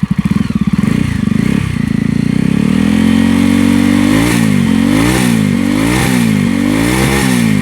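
Honda CB300's single-cylinder engine revved while standing, through a homemade three-into-one exhaust with the dB killer removed. The revs climb from idle and hold high, then rise and fall in several quick blips before dropping back toward idle near the end.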